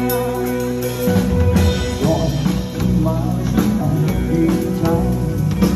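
Live band playing amplified pop-rock with drum kit and guitar: held notes ring for about the first second, then the drums come in with a steady beat.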